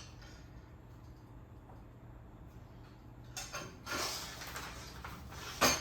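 Metal brackets on a miter saw stand's rail being handled and tightened: a few seconds of scraping and sliding metal, then a sharp clack near the end.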